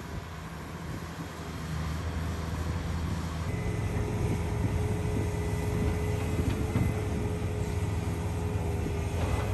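Huina 1593 RC excavator running: a steady low mechanical drone, joined about three and a half seconds in by a steady whine as it works, a little louder from then on.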